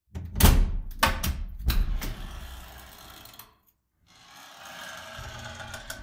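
Solid metal cellar door opened and closed by its handle: a loud clunk under half a second in, then a quick run of handle and latch clunks, each ringing out in the bare room. After a short pause in the middle, noise builds up as the door swings again.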